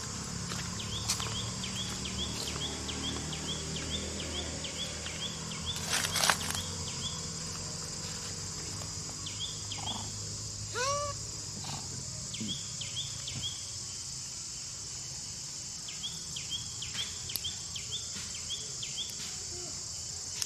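Insect chorus: a steady high-pitched drone with runs of short repeated chirps. A brief rustle comes about six seconds in, and a short rising call about eleven seconds in.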